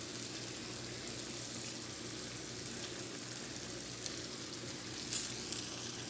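Tomato and yogurt gravy cooking in a pan on a gas burner, a soft steady sizzle, with a single brief click about five seconds in.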